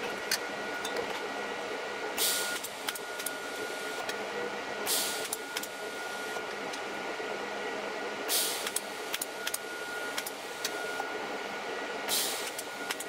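TIG welding arc struck in four short bursts, each a brief hiss under half a second, about every three seconds, as filler wire is added to melt a ball onto the end of a 3 mm stainless steel cable. A steady high whine and small clicks run underneath.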